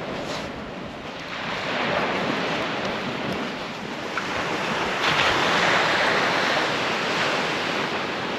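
Sea surf breaking and washing up the beach, swelling about a second in and again, louder, about five seconds in.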